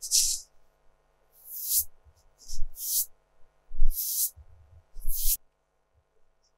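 A large soft fan-shaped dusting brush swept across paper to clear eraser crumbs: five brisk swishes about a second apart, stopping about five seconds in.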